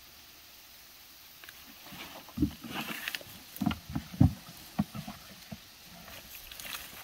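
Handling noise as a plastic carrying basket is lifted and slung onto a person's back by its straps: after a quiet start, irregular low thumps and knocks with rustling between them.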